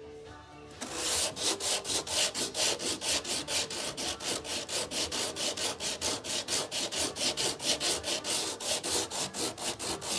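Hand sanding of cured epoxy-and-microballoon filler with coarse sandpaper wrapped round a piece of broomstick: quick, even back-and-forth rasping strokes, about four or five a second, starting just under a second in.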